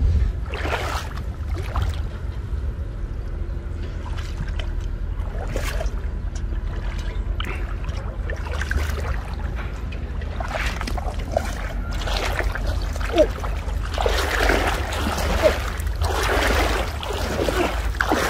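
Legs wading through knee-deep floodwater, the water sloshing and splashing around them, busier in the last few seconds, over a steady low rumble.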